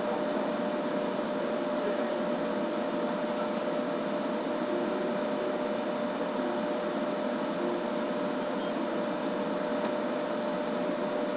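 Steady machine hum with one constant mid-pitched tone running through it, unchanging throughout.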